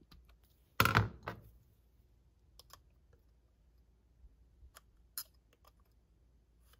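Light metallic clicks and taps as a steel feeler gauge blade is slid between the ignition contact points of a 25D-type distributor to recheck the points gap. About a second in there is one louder clatter, as the screwdriver is put down.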